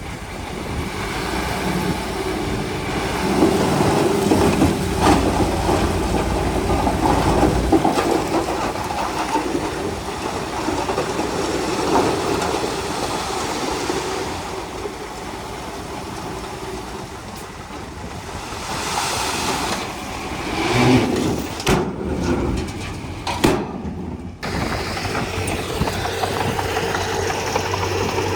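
Komatsu D31P bulldozer's diesel engine running under working load, its level swelling and easing, with a few sharp knocks in the second half.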